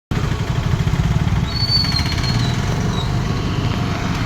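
An engine running steadily with a low, fast throb, and a thin high whistling tone that comes in about one and a half seconds in and fades after about a second.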